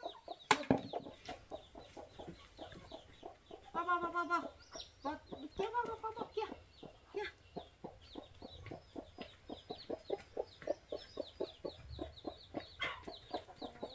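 A mother hen clucking in a quick, steady run while her chicks peep in high, short notes. A sharp knock sounds about half a second in.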